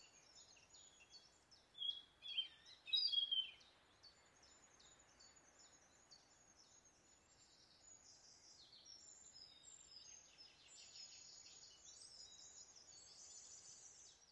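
Woodland birds chirping and calling, a dense chorus of high-pitched chirps, with a few louder calls about two to three and a half seconds in.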